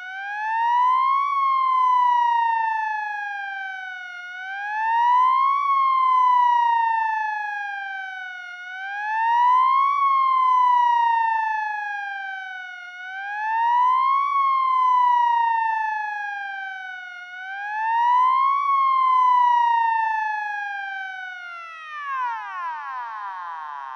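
Wail siren of an emergency vehicle, heard from outside. The pitch sweeps up quickly and sinks slowly about every four seconds, getting louder on each rise, for five cycles. It then drops away steeply as the siren winds down near the end.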